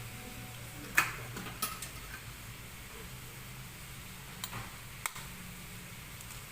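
Eggs being cracked against a cooking pot and dropped into boiling water: a sharp knock about a second in, then a few lighter clicks and taps, over a low steady hum.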